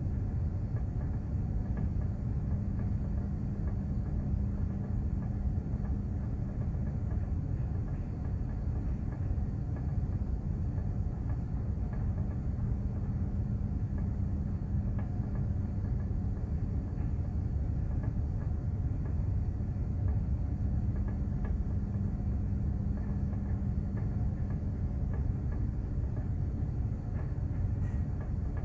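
Container ship under way at sea: a steady low rumble with a steady hum that fades for a while in the middle and then comes back.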